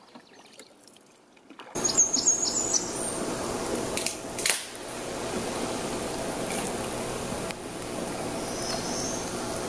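Faint water sounds of a canoe paddle stroking, then about two seconds in a steady hiss of rain, with a bird chirping briefly.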